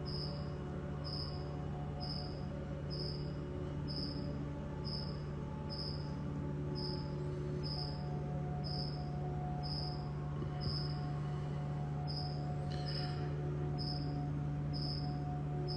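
A cricket chirping steadily, about once a second, over a constant low hum.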